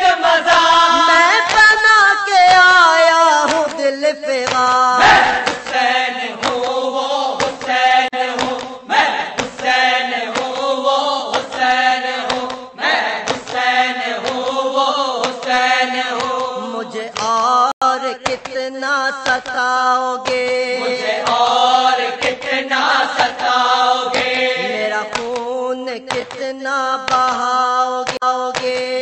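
An Urdu marsiya, a mourning elegy for Imam Husain, chanted in slow melodic phrases over a steady held drone note.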